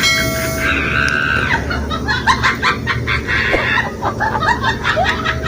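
A rapid series of short, high animal calls, several a second, running on without a break.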